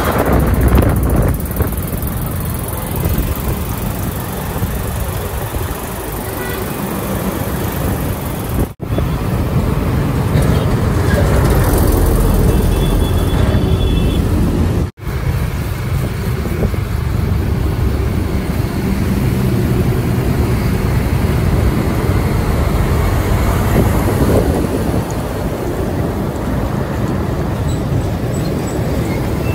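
Street traffic with trucks driving past: steady engine rumble and tyre noise. It drops out suddenly twice, about nine and fifteen seconds in.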